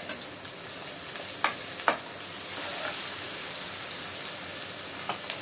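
Sliced onions sizzling steadily in hot oil in an aluminium pot, fried with salt so they soften quickly. A steel spoon stirs them, with two sharp knocks of metal on the pan about one and a half seconds in.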